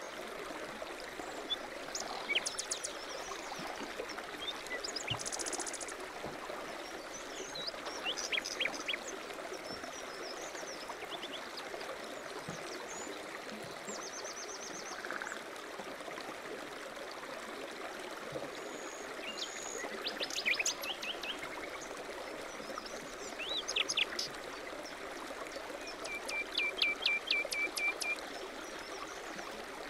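A stream babbling steadily while small songbirds chirp and trill now and then, with a quick run of repeated chirps near the end.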